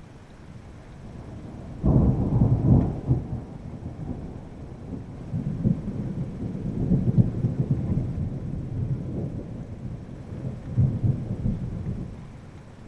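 Thunder: a sudden loud crack about two seconds in, then low rolling rumbles that rise and fall, with another swell near the end before it dies away.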